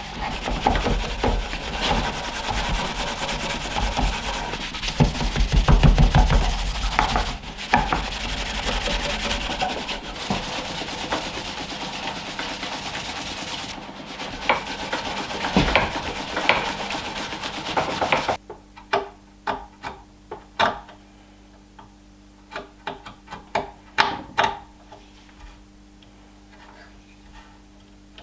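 Cloth rag rubbing briskly over the linseed-waxed oak table base, buffing the cured wax to a shine. After about 18 seconds the rubbing stops abruptly, followed by a few scattered light knocks and clicks.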